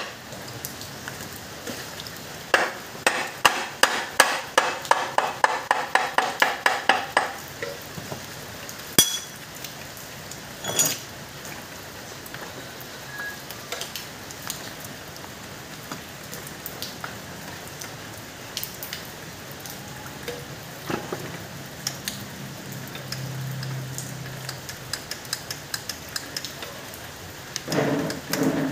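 Hammer striking metal on a Mazda Bongo 4x4 manual transmission being taken apart: a quick run of about sixteen ringing metallic blows, about three a second, then scattered light clinks and knocks of tools and parts, with a few louder knocks near the end.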